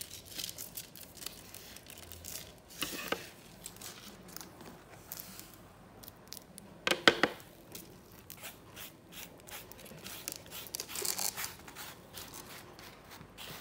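A stiff card sand-art sheet being handled, with rustling, flexing and scraping as it is lifted and tilted, and scattered taps on the table. The loudest sharp rustle comes about seven seconds in, and there is a longer rustle near eleven seconds.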